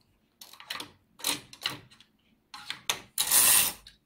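Metal needles on the needle bed of an Empisal 560KL knitting machine being moved by hand: several short rattling, scraping strokes, the last and loudest about three seconds in.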